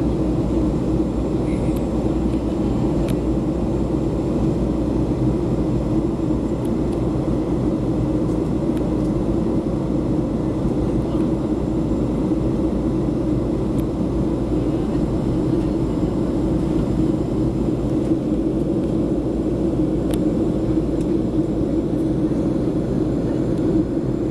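Steady cabin noise inside a Boeing 737 airliner descending on approach: engine and rushing-air noise, heaviest in a low hum, unchanging throughout, with a few faint clicks.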